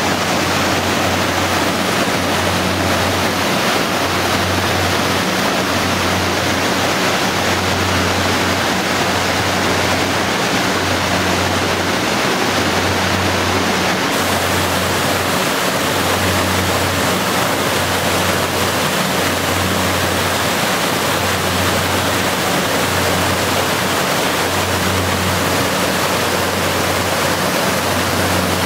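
The Sydenham River rushing over rocky rapids and down Inglis Falls, an 18-metre waterfall: a steady, loud rush of white water.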